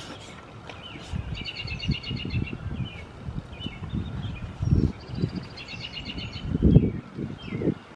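American Bully dogs play-wrestling up close, giving low grumbling and scuffling sounds in uneven bursts, loudest near the middle and late on. A songbird trills twice in the background, near the start and again near the end.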